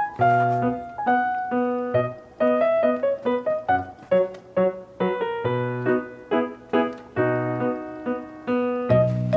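Background music: a piano-like keyboard playing a light melody of struck notes.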